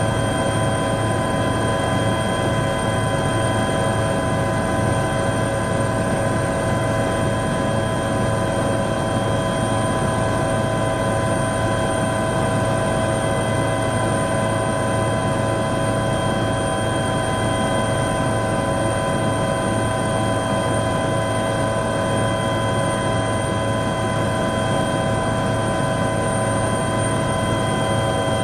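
Helicopter in level flight, heard from inside the cabin: a steady drone of engine and rotor with several constant high whining tones over a low hum, unchanging throughout.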